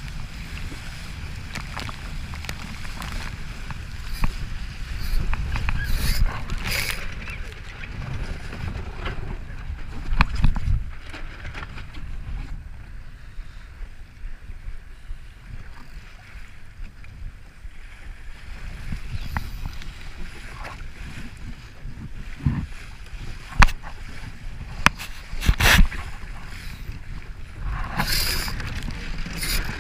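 Wind buffeting the microphone over open water, a steady low rumble, with a few sharp knocks scattered through the second half.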